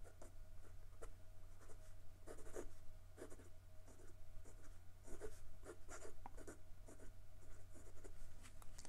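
Sailor 1911 Large fountain pen's 21k gold nib writing on paper: faint, quick, irregular strokes of handwriting.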